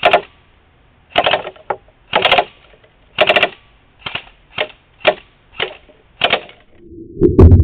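Echo1 Stag Arms M4 airsoft electric rifle firing about a dozen sharp, loud shots, one or two a second at an uneven pace. Music with a low beat starts near the end.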